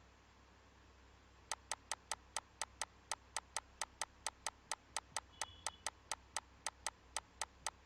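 A rapid series of sharp, evenly spaced small clicks, about four a second, starting about a second and a half in and going on to the end.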